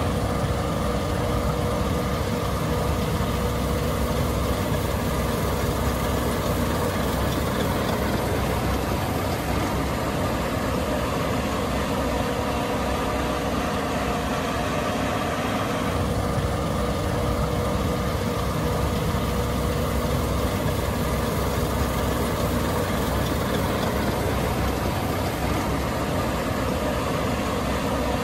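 Case IH 8260 Axial-Flow combine running: a steady engine drone with a held whining tone over it, the tone shifting slightly about halfway through.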